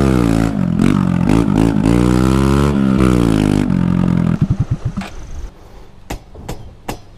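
Single-cylinder motorcycle engine revving up and down several times, then dropping in pitch and cutting out about four and a half seconds in. A few sharp clicks follow near the end.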